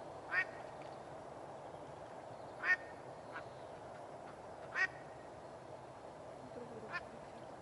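A live decoy hen duck quacking, four short calls about two seconds apart, calling to draw in drakes.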